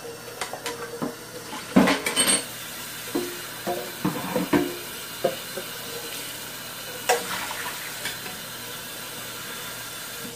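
Tap water running into a stainless steel sink while a bread maker's metal nonstick pan is rinsed and scrubbed by hand, with clunks and clatter of the pan against the sink, loudest about two seconds in, again from three to five seconds, and once more near seven seconds.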